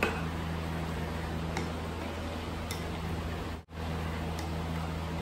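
Spoon stirring a thick yogurt sauce in a ceramic bowl, with a few light irregular clicks as it taps the side, over a steady low hum.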